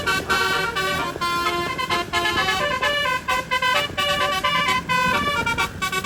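Bus telolet horn, a set of twelve roof-mounted horn trumpets driven by a telolet module, playing a quick melody. The pitched notes change several times a second with a few brief breaks, over a low vehicle rumble.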